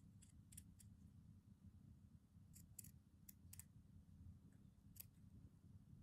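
Near silence with a few faint, scattered snips of small scissors cutting a fabric scrap.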